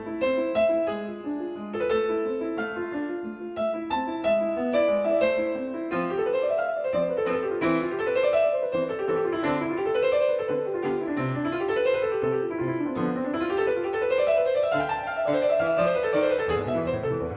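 Piano music. It begins with separate notes and chords, then from about six seconds in it turns to flowing runs that rise and fall over and over.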